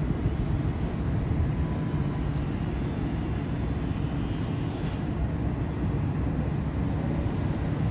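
Steady low rumble of a boat engine, with wind buffeting the microphone.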